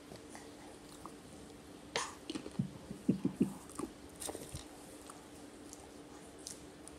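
A toddler eating a bite of food: a cluster of wet mouth clicks and lip smacks with a few short soft sounds, mostly between two and four and a half seconds in.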